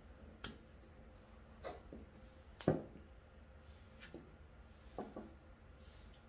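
Scrapbook-paper pumpkins being handled and set down on a tabletop: about five separate soft knocks and paper rustles, the loudest a little before the middle.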